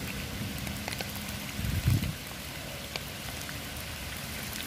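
Steady rain falling, a hiss with scattered drop ticks, and a low thump about two seconds in.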